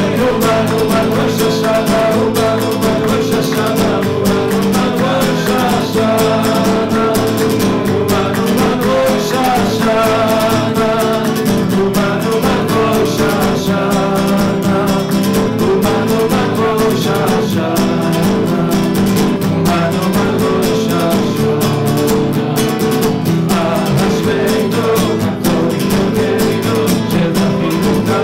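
Classical nylon-string guitar strummed steadily while a man sings a flowing melody into a microphone.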